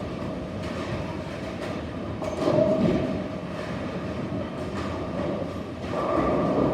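Bowling alley din: a continuous rumble of balls rolling down the lanes and pinsetter machinery, with faint clatters. The rumble swells louder twice, about two seconds in and again near the end.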